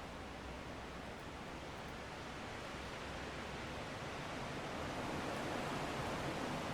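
Strong wind blowing steadily, a whooshing rush that swells into a stronger gust about halfway through.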